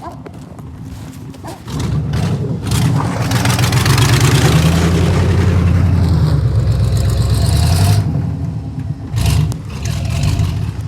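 A vehicle engine revs hard under load for several seconds, with a loud rushing, scraping noise over it, then drops back about eight seconds in.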